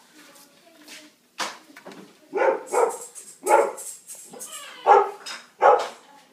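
A series of about five sharp, loud dog-like barks, unevenly spaced, starting about two seconds in.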